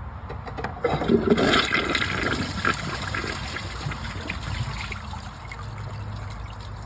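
Matte black Clovis Goods one-piece dual-flush toilet flushed on its 1.6 full-flush setting: a loud rush of water about a second in, then a quieter wash of water in the bowl that tapers off. The flush fails to clear four socks and the toilet clogs.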